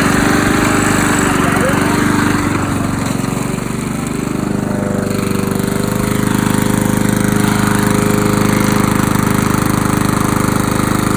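Walk-behind petrol lawn mower's small engine running steadily, just pull-started; its note dips briefly about four seconds in, then settles again.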